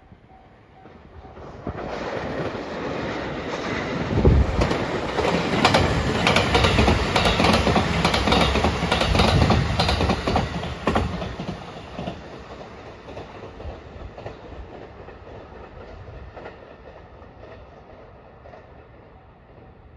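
Rapid Marine Liner electric train with a double-deck car passing at speed, its wheels clicking over the rail joints. It builds from about two seconds in, is loudest around the middle, and fades away through the second half.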